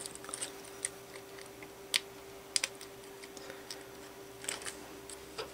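Faint, scattered small clicks and taps of a plastic laptop key retainer clip being pressed and slid under the metal hooks of an HP/Compaq keyboard base by fingers; the sharpest clicks come about two seconds in and again just after.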